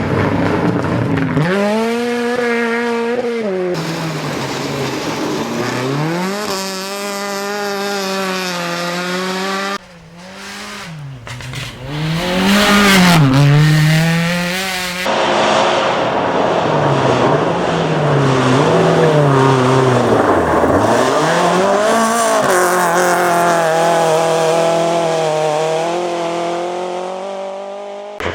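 Rally car engines revving hard, the pitch climbing through each gear and dropping at every shift and under braking. The sound changes abruptly about ten and again about fifteen seconds in.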